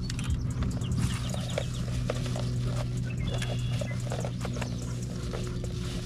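Dog panting close by in short, repeated breaths, over a steady low hum.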